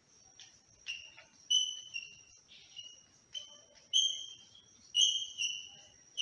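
Chalk squeaking on a blackboard during writing: a string of short, high squeals, each starting with a tap of the chalk on the board, about one or two a second.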